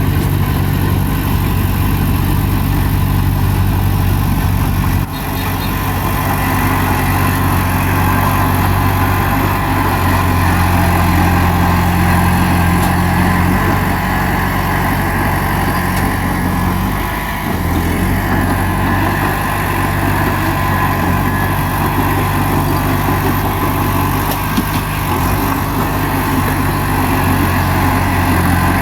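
Diesel engine of a crawler bulldozer running steadily, with small changes in load and a brief dip past the middle.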